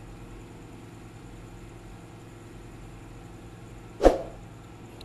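A steady low mechanical hum, like an engine running, with several steady tones in it, and one short thump about four seconds in.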